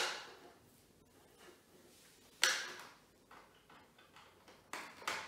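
Sudden plastic clicks and knocks from Scalextric hand controller and transformer plugs being handled and pushed into the track: one at the start, one about two and a half seconds in, and two close together near the end.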